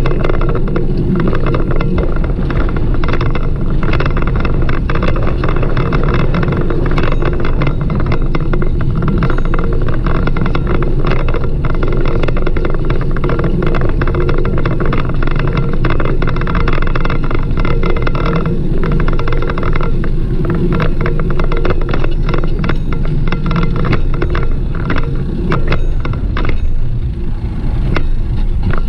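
Steady loud riding noise from a bicycle on paved streets: a low rumble with constant rattling and many small knocks.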